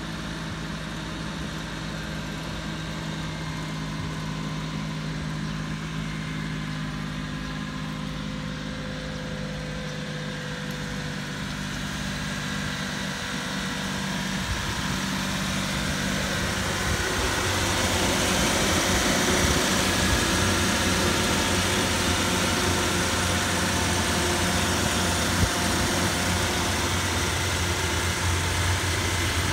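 Mitsubishi Minicab kei truck's small engine idling steadily. It grows louder and deeper from about halfway, once the seat over the engine is tilted up.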